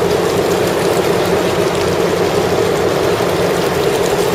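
A fishing boat's engine running with a steady drone.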